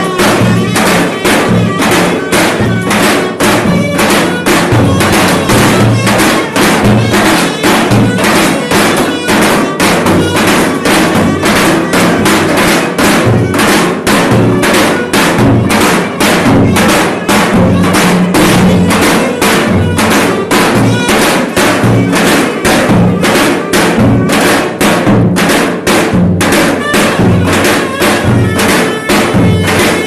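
Two davul bass drums beaten in a fast, steady rhythm, about three strokes a second, under a loud reed wind instrument playing a traditional Turkish dance melody: a davul-and-reed street band playing live.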